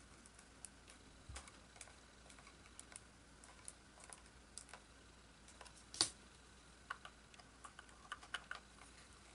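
Faint, scattered clicks and ticks of a small screwdriver turning screws into the kit's case. One sharper click comes about six seconds in, and a quick run of clicks comes near the end.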